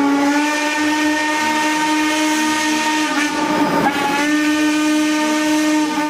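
Pressure washer running: a steady motor hum with a hiss of water spray, cutting off suddenly at the end.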